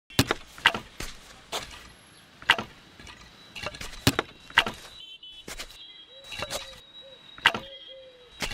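Wooden planks knocking and clattering against one another as they are lifted and shifted on a pile: about a dozen sharp knocks at irregular intervals.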